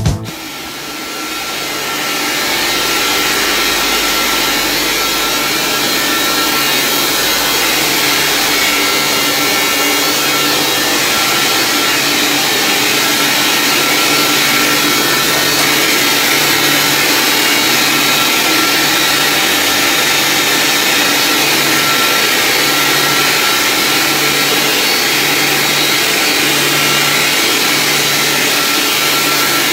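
Booster pump station's electric motor-driven pumps running: a loud, steady whir that builds over the first two seconds, with a faint steady whine and a slow, regular low throb.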